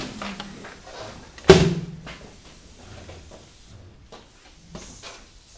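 A single loud knock about one and a half seconds in, followed by faint scattered clicks and handling noises.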